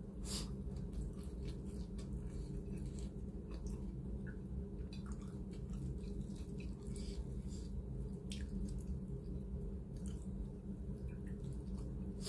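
A person eating rice and shredded chicken by hand: soft chewing with scattered small mouth and finger clicks against the plate, over a steady low hum.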